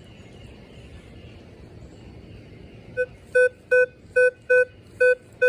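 Minelab Vanquish 440 metal detector giving about seven short beeps of one pitch over two and a half seconds, starting about three seconds in. It is the detector's target tone as the coil sweeps over a nickel buried in a hole, reading a target ID of 13.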